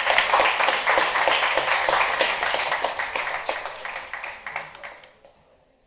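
Audience applauding at the end of a lecture, fading away over about five seconds.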